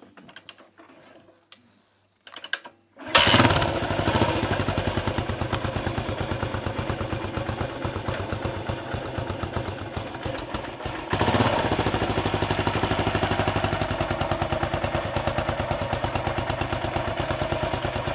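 1979 Yamaha XT 500's single-cylinder four-stroke engine kick-started: it catches about three seconds in and settles into an even, pulsing idle, getting louder about eleven seconds in.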